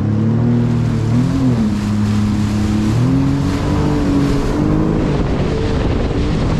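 Sea-Doo FishPro jet ski engine running under way, its pitch shifting up and down several times as the throttle changes, with the rush of water and wind underneath.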